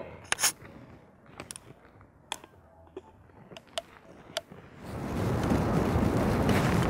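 A few scattered light clicks and knocks. Then, about five seconds in, a steady rush of wind noise sets in.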